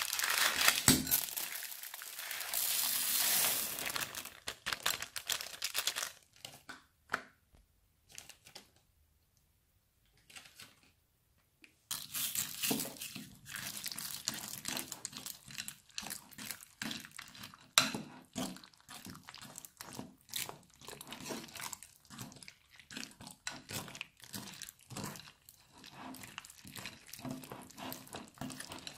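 A plastic zip-lock bag crinkling as small beads are handled and poured from it, followed by a near-silent pause. Then slime packed with plastic beads is stirred and squeezed by hand in a glass bowl, giving many small irregular crunches, clicks and squishes.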